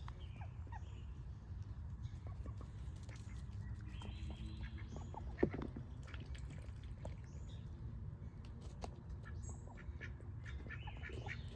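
Domestic duck hens calling quietly now and then over a steady low rumble, with one sharp knock about five seconds in.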